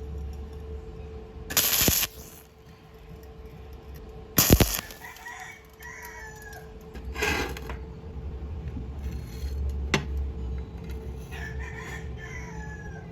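A chicken calling in two bouts of short rising and falling notes, amid several sharp knocks or clatters, the loudest about four and a half seconds in. A faint steady hum runs underneath.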